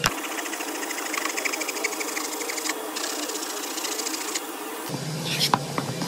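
A fast, even mechanical ticking with a short break midway, from a source that cannot be made out. About five seconds in it gives way to the rasping strokes of a hand plane shaving the edge of a pine strip.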